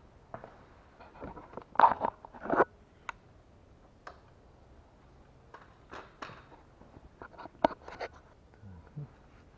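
Scattered handling noises: short knocks, clicks and scrapes, with a cluster of louder scrapes about two seconds in and a sharp click near the end.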